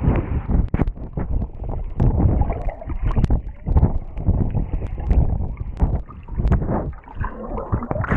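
Pool water splashing and sloshing against a handheld action camera, muffled by its waterproof housing, with irregular thumps and knocks as it moves through the water.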